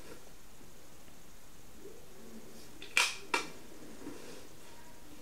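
A multi-tool being handled: two sharp clicks about a third of a second apart, about three seconds in, over a low steady background.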